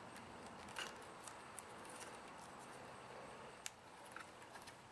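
Faint crinkling and a few sharp clicks of vinyl electrical tape being unwound and wrapped by hand around a wire, patching chewed insulation.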